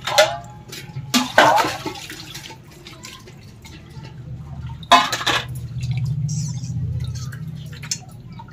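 Water splashing and dripping as raw offal is rinsed by hand in a steel bowl and plate, with three sharp splashes: one right at the start, one about a second in and one about five seconds in.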